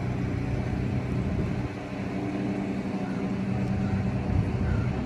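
Steady low engine hum: several held low tones under a rushing noise, dipping slightly about two seconds in.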